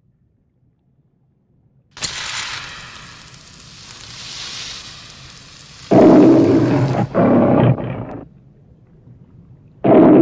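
Lion roars in an MGM-style studio logo: a roar about six seconds in, followed right away by a second, and a third starting near the end. Before them, from about two seconds in, a sudden rush of hiss breaks the silence and fades.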